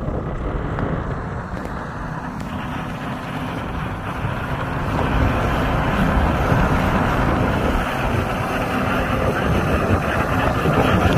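Komatsu compact crawler dozer's diesel engine running as it pushes dirt with its blade, growing louder about two and a half seconds in.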